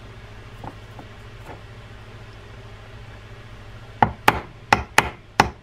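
Dead blow hammer striking a pick to drive a stubborn gear-sleeve pin out of a Penn Senator 6/0 reel: a quick run of about six sharp knocks, roughly three a second, starting about four seconds in.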